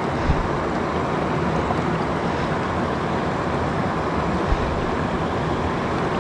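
Steady rush of flowing river water, with two light knocks, one just after the start and one a little past the middle.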